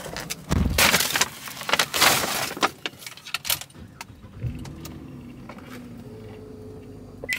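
Rustling of a paper takeout bag and handling clatter with keys jangling, with a low thump about half a second in, like a car door shutting. About halfway through a steady car hum sets in and holds.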